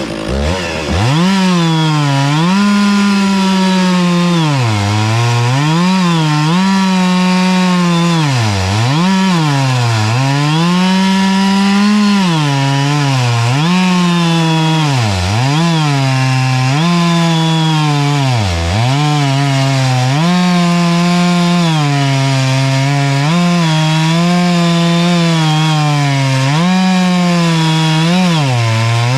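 Stihl two-stroke chainsaw on an Alaskan chainsaw mill, running at high revs as it rips lengthwise through an oak log. Its engine pitch dips sharply again and again under the load of the hardwood and recovers each time.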